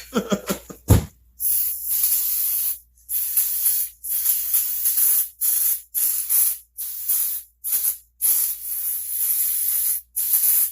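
Hissing spray in about a dozen short bursts with brief gaps, cleaning grime off a part of a McCulloch SP81 chainsaw. Before it, in the first second, there is handling clatter and a sharp knock.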